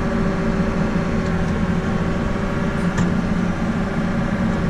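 Tractor engine running steadily, heard from inside the cab as an even low drone, with a faint click about three seconds in.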